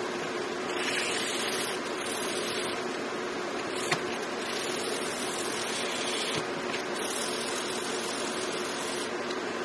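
A silver dog-tag blank rubbed back and forth on black sandpaper laid flat on the bench, a scratchy hiss in several spells of a second or two with short breaks, over a steady background hum. There is one sharp tick about four seconds in.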